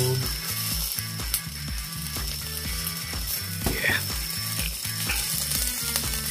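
Chicken cartilage sizzling on a wire grill over charcoal, with small crackles and pops from the coals. Background music with a steady low bass beat runs underneath.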